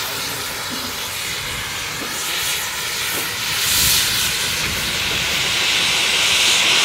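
Steam locomotive letting off steam: a steady hiss that swells about halfway through, stays loud, and cuts off abruptly at the end.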